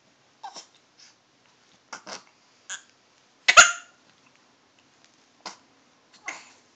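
Baby hiccuping: short, sudden gasping hiccups at irregular intervals of about a second, the loudest about three and a half seconds in.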